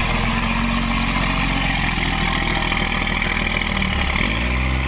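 Diesel pickup truck engine idling steadily, then starting to rev up about four seconds in.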